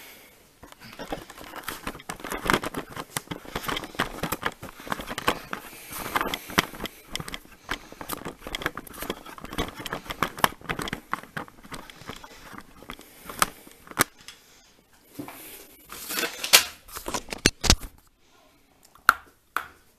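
Handling noise from a camera being fitted onto its mount and set in place: continuous rustling and scraping with many small clicks and knocks, then a couple of sharp clicks near the end.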